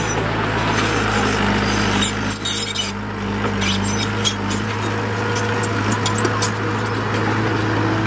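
Engine of a working dump truck or small bulldozer running steadily, with scattered clanks and knocks over the hum.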